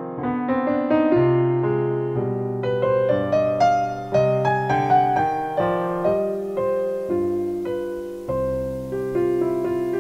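Background piano music: a melody of single notes and chords, each struck and left to fade.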